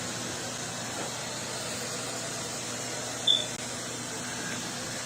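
MAMNV BR151 robot vacuum and mop running in zigzag mopping mode: a steady fan whir, with one short high chirp about three seconds in.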